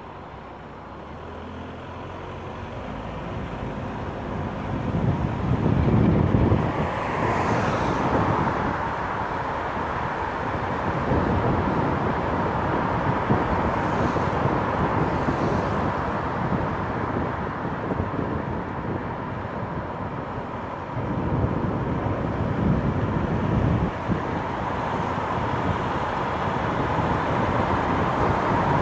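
Car driving on an open road, heard from a camera mounted outside on its roof: a steady rush of wind and tyre noise with a hum, growing louder over the first several seconds as the car gets up to speed. Low gusty rumbles twice mark wind hitting the microphone.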